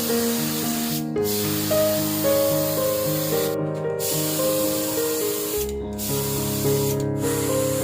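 Spray paint hissing in long bursts, broken by four short pauses where the nozzle is released, over background music with a melody.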